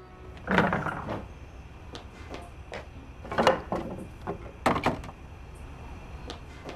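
Irregular knocks and clunks of a wooden door being handled, with footsteps. The loudest come about half a second in, at about three and a half seconds and just before five seconds, with lighter clicks between.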